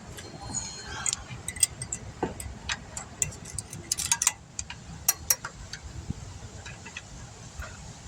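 Irregular sharp metal clicks and clinks of a screwdriver prying a brake pad and its clip out of the caliper bracket, busiest about a second in and again around four to five seconds in.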